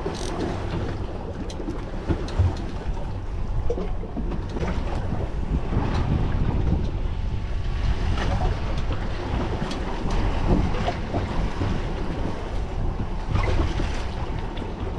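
Wind buffeting the microphone, with waves washing against the hull of a boat out on the open sea.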